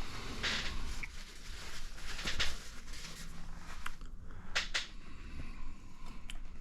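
Small plastic RC shock parts being handled and fitted by hand on a workbench: rustling and scraping with a few sharp clicks, two close together about four and a half seconds in.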